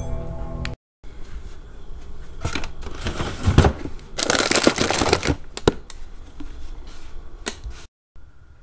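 Background music that stops at an abrupt cut, followed by several seconds of rustling and irregular clicking and clattering, the sound of things being handled close by. The handling is busiest in the middle and ends at another abrupt cut.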